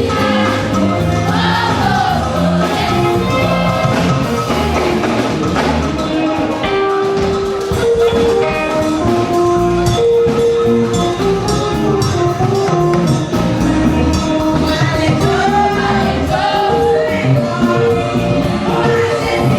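Gospel music: voices singing over held instrument notes, with a steady percussion beat.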